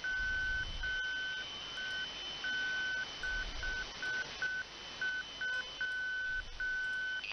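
Morse code (CW) from a shortwave propagation beacon received through a web SDR: a single beep pitch keyed slowly on and off in dots and dashes, with a faint steady higher whistle underneath. The keying stops near the end.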